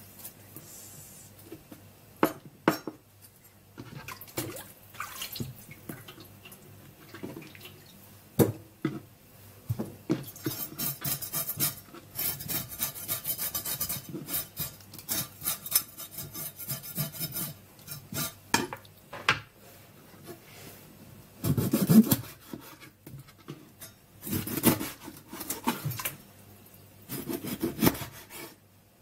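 Kitchen knife scraping and cutting small fresh sardines on a tray: irregular rasping scrapes with sharp knocks of the blade on the tray, a long run of steady scraping in the middle.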